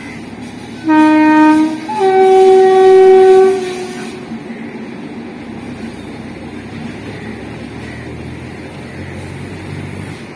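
Indian Railways train horn sounding two blasts about a second in: a short lower note, then a longer, higher and louder one. After that comes the steady rumble of the train running over the line.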